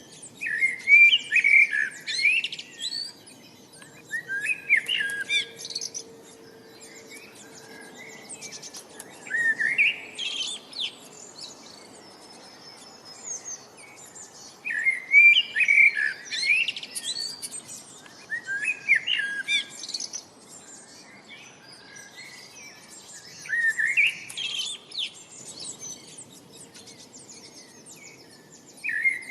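Songbird singing in short phrases of quick, high sliding notes, a phrase every four to five seconds, over a faint steady background hiss.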